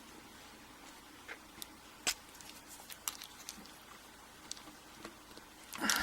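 Small metal clicks and light scraping as a tool works the retaining clip off a Mul-T-Lock Classic euro cylinder, with a sharper click about two seconds in and a louder scrape near the end.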